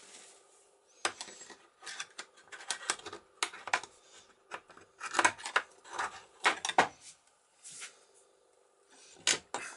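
Irregular small metal clicks, taps and scrapes of a screwdriver working a spring and parts loose on the steel plate of a sailboat cabin lock mechanism, with a few short pauses between clusters.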